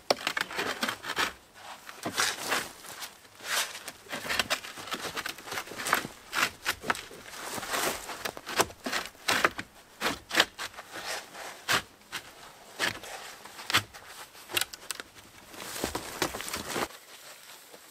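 Close, irregular rustling and crunching with many sharp cracks and snaps, like spruce branches and snow being handled during shelter building; it stops about a second before the end.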